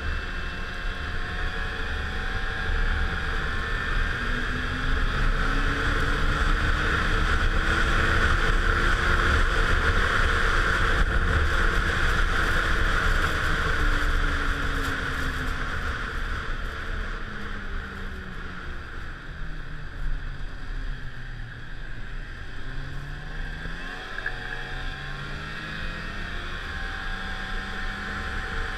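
Snowmobile engine and track running at trail speed, heard from the rider's seat, with a steady rushing noise over it. The engine pitch climbs over the first several seconds, drops away past the middle as the sled slows, then picks up again near the end.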